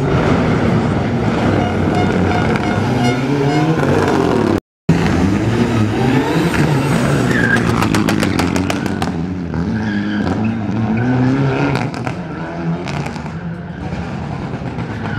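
Mitsubishi Lancer Evolution rally car's turbocharged four-cylinder engine revving hard through a tight chicane, its note climbing and falling again and again with throttle and gear changes. A quick string of sharp cracks comes about halfway through, and the engine grows a little quieter near the end as the car pulls away.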